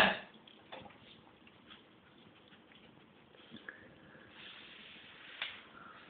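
A dog licking dirty plates in an open dishwasher: faint wet licking with scattered small clicks.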